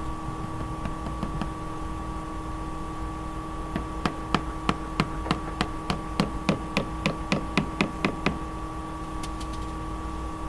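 Hammer driving nails into a new garage door weather strip: a quick run of about fifteen sharp strikes, roughly three or four a second, starting about four seconds in.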